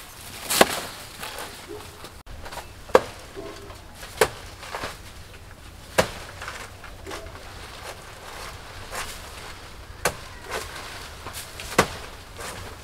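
A long curved machete chopping into a banana tree, about six sharp blows at uneven intervals with a few lighter knocks between them.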